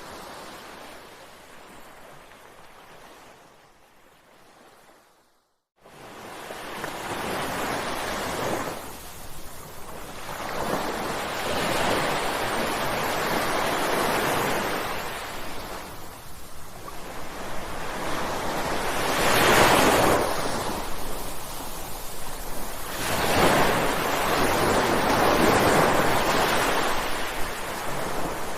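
Ocean surf with waves breaking and washing in, swelling and ebbing every few seconds. It fades almost to silence briefly about five seconds in, then builds again. The loudest breaker comes about two-thirds of the way through.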